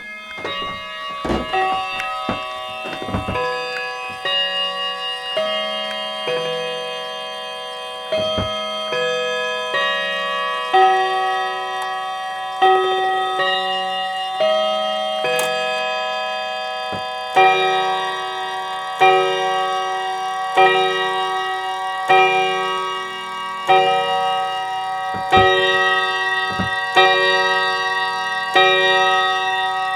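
A chiming clock playing a tune of struck, ringing notes. From about 17 s it moves to steady, evenly spaced strikes about every second and a half. A few sharp knocks sound in the first few seconds.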